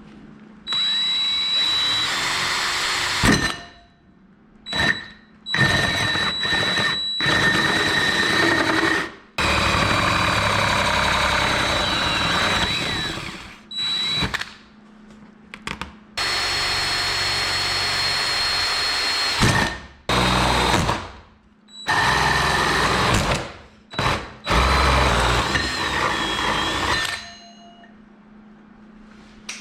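Power drill boring the mounting holes through a car's front bumper, running in a series of bursts of a few seconds each, with a steady high motor whine that starts and stops between holes.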